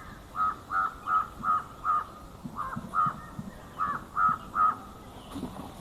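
An animal or bird calling: about ten short, same-pitched calls in three quick runs, each call about half a second after the last.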